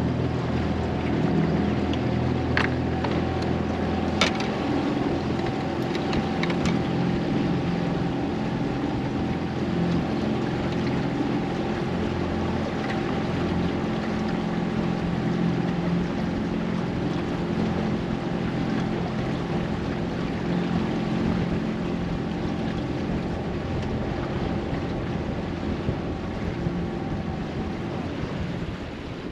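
Small boat's outboard motor running steadily as the boat moves off, with wind on the microphone; a few sharp clicks in the first few seconds, and the motor eases off near the end.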